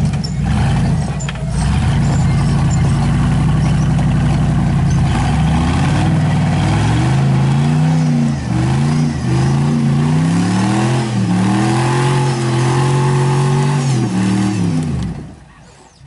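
Full-size Chevy rock crawler's engine running hard as the truck climbs a rocky ledge: a steady note at first, then revving up and down repeatedly from about six seconds in, before dropping away sharply near the end.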